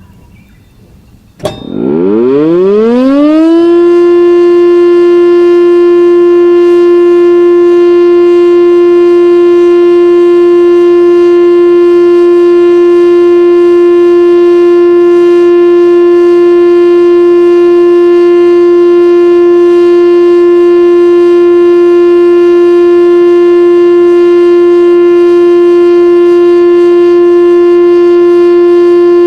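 Municipal disaster-prevention radio siren sounding its monthly test over outdoor loudspeakers. After a click, it winds up in pitch over about two seconds, then holds one loud steady tone.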